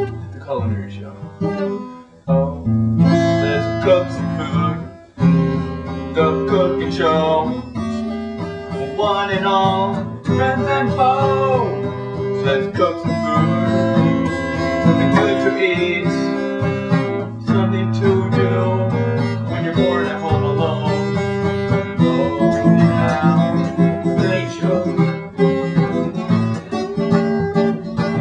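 Music on acoustic guitar, strummed and plucked.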